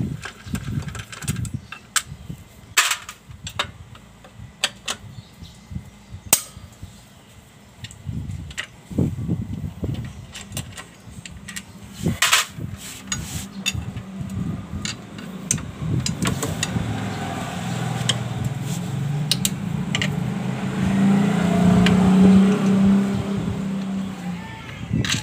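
Scattered sharp metal clicks and clinks, then an engine running with a steady drone that builds over the second half, loudest a few seconds before the end.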